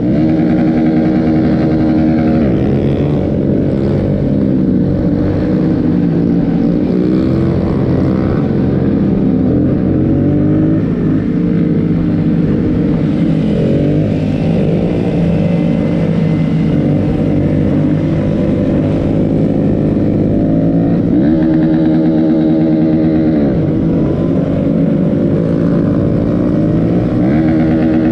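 Dirt bike engine running under way, heard from on the bike itself. Its pitch falls and climbs again with throttle and gear changes, about two seconds in and again in a long dip and rise a little past the twenty-second mark.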